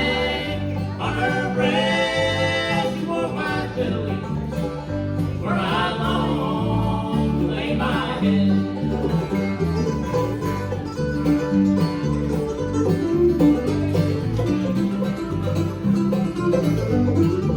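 Bluegrass band playing: banjo and guitar picking a steady rhythm over a stepping bass line, with long held melody notes above them in the first half.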